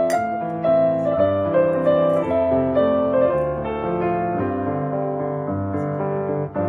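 Background piano music: a melody of sustained notes over a lower line.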